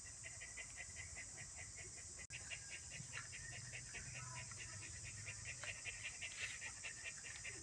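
Insects chirping in a fast, even pulse of about four chirps a second over a steady high hiss; the sound cuts out for an instant about two seconds in.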